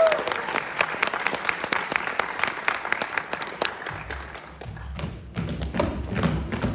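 Audience applauding as a song ends, the clapping thinning out and dying down over about four seconds. Low thumps follow near the end.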